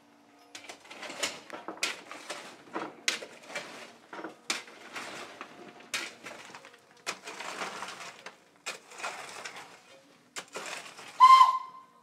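Irregular metallic knocks and short bursts of noise around a steam locomotive, then a brief, loud whistle tone near the end.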